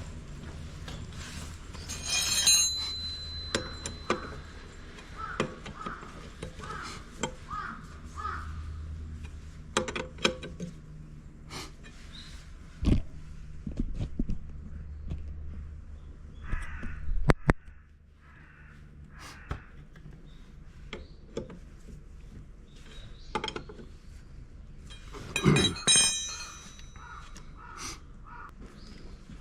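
Crows cawing in three runs of repeated calls, over scattered clinks and knocks of tools on metal parts.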